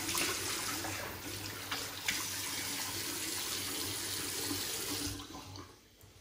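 Bathroom tap running into a sink, with splashes as water is scooped up to rinse shaving lather off the face; the water stops about five seconds in.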